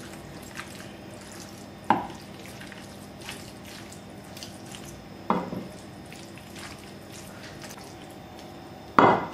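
A wooden spoon stirring minced meat and bow-tie pasta in a glass baking dish: faint scraping and squishing, broken by three sharp knocks of the spoon against the glass, about three and a half seconds apart, the last the loudest.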